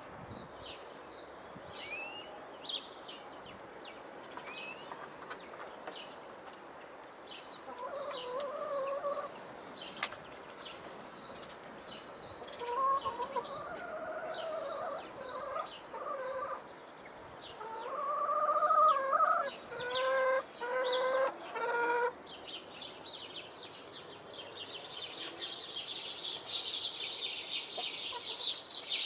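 Domestic hens calling while they feed: a few drawn-out calls from about a third of the way in, then a quick run of short clucks about two-thirds through. Light ticks of pecking on the ground between the calls.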